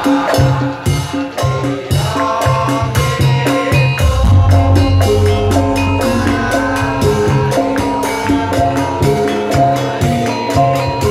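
Live Javanese gamelan-style ensemble music: ringing pitched metal notes over drumming and fast, dense percussion strokes, with the low drum part growing heavier about four seconds in.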